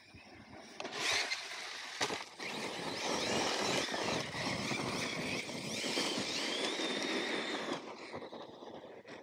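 Arrma Kraton V5 6S RC monster truck driven at speed over gravel: the whine of its brushless electric motor rises and falls in pitch with the throttle over the hiss of tyres on gravel. It starts about a second in and drops away near the end.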